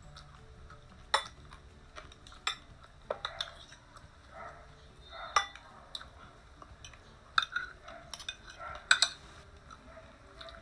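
Metal spoon and fork clinking and scraping on ceramic plates as food is cut and scooped. Sharp separate clicks are scattered through, loudest about halfway and twice near the end.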